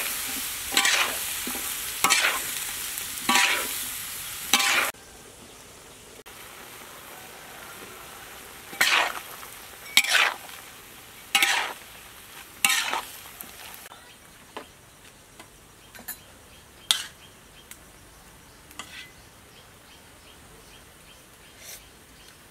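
Sliced red onion stir-frying in a wok with a steady sizzle, a metal spatula scraping and tossing it about once every second and a half. The sizzle drops away suddenly about five seconds in; four more heavy spatula strokes follow, then only light clicks.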